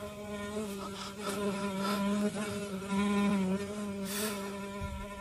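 A flying insect buzzing: a steady hum on one pitch that swells and fades as it moves about, loudest around two to three seconds in. A brief rustle of bedding about four seconds in.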